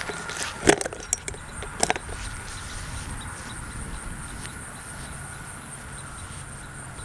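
Camera being handled and set in place: a few sharp knocks and rubbing on the microphone in the first two seconds, the loudest about a second in. Then faint, evenly spaced steps on grass.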